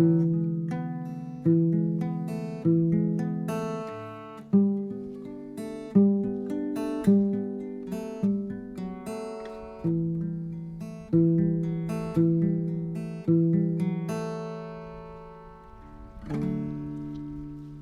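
Acoustic guitar music: chords strummed about once a second, each ringing and fading, with a longer ringing chord before a new one near the end.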